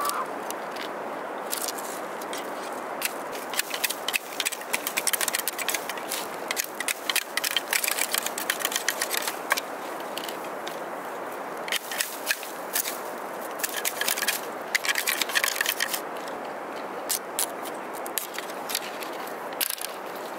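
Split bamboo strips crackling, clicking and scraping against each other as a basket is woven by hand. The sharp clicks come in irregular runs over a steady background hiss.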